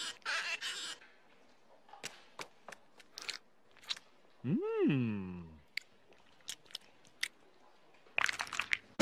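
Cartoon eating sounds: a run of sharp crunches and bites of crunchy food. About halfway a short voice sound rises and then falls in pitch, and more scattered crunches follow.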